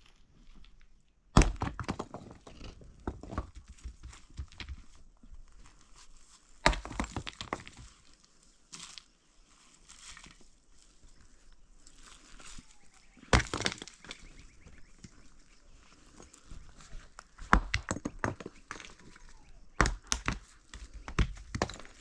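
Loose rocks knocking and clacking against each other as they are picked up and handled, in a handful of sharp knocks spread a few seconds apart, with several close together near the end. Smaller scrapes and rustles of stone on stony ground come between them.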